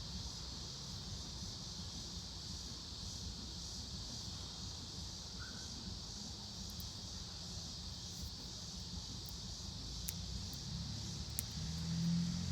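Insects, crickets by the sound, keep up a steady high-pitched chirring that pulses at an even rate over a low background rumble. A few faint clicks come in the second half, and a car engine starts to be heard drawing near at the end.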